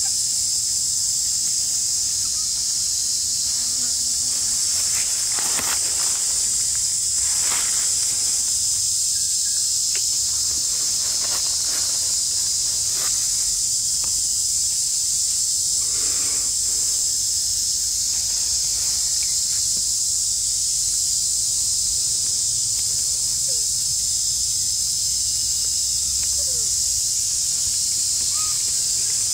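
Steady, high-pitched insect chorus of a tropical forest, droning without a break, with a few brief clicks standing out in the middle.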